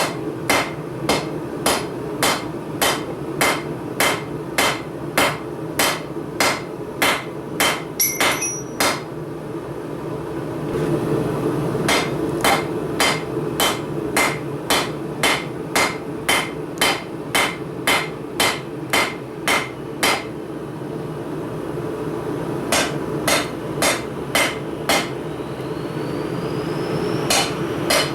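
Blacksmith's hammer striking steel on an anvil while forging tongs: runs of ringing blows at about two a second, broken twice by short pauses, over a steady low hum.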